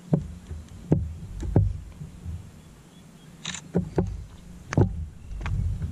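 Several knocks and thumps on a fishing kayak while a bass is being landed, with a short burst of hiss about three and a half seconds in.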